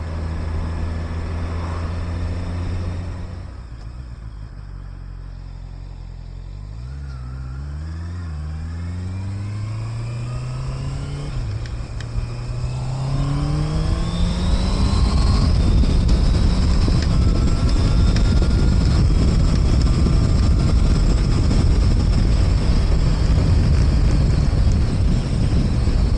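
Honda E-Clutch sports bike's inline-four engine running steadily, then easing off about three seconds in. It then accelerates up through the gears, the revs climbing and dropping back at two smooth upshifts. From about halfway on, loud wind noise on the microphone covers the engine at speed.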